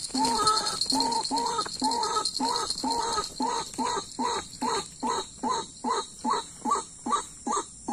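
White-breasted waterhen giving its repeated croaking call, two to three notes a second, each note growing shorter and more clipped as the series goes on. A steady high-pitched buzz runs behind it.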